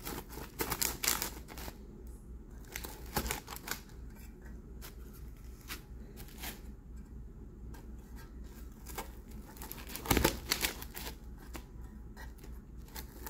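A stainless steel rocker pizza cutter pressed down through a crisp-baked pizza crust, which crunches and crackles in short irregular bursts. The loudest crunch comes about ten seconds in.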